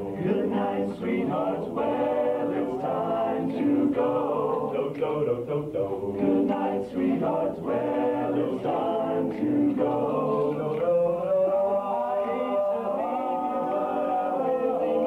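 Male vocal group singing a cappella in 1950s doo-wop style, several voices in close harmony, with long held chords in the last few seconds.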